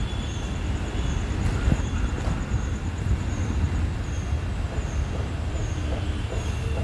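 Steady low rumble of background vehicle noise, with faint short high chirps repeating about every half second to a second.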